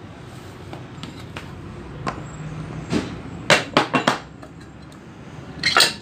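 Metal clinking as a rotavator ball bearing is worked loose and lifted out of its steel housing. There are a few light taps, then four quick sharp clinks about three and a half seconds in, then a louder rattle just before the end, all over a steady low hum.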